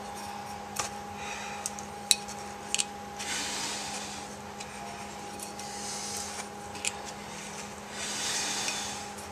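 Old gasket being scraped out of the groove of a round aluminium compressor cover plate with a hand tool: irregular spells of scraping and rubbing with a few sharp metal clicks, over a steady hum.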